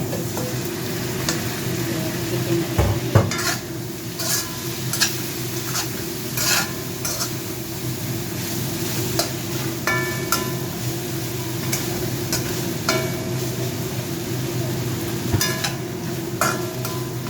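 Chicken legs and onion sizzling steadily in oil while being stir-fried. A cooking utensil scrapes and knocks against the pan now and then, a few strokes giving short metallic rings.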